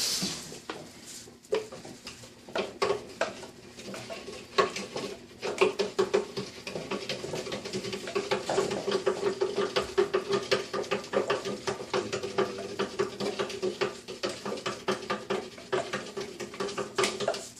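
A utensil scraping and knocking against a mixing bowl as cheesecake batter is emptied into a crust: a few scattered scrapes at first, then a quick, steady run of them.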